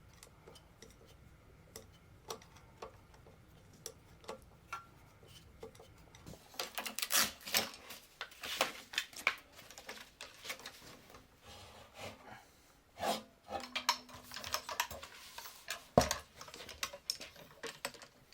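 Light clicking and clattering of a small screwdriver and a Bowflex power-rod assembly being worked loose. Sparse ticks at first, then a busy run of clicks and rattles from about six seconds in, with one sharper knock near the end.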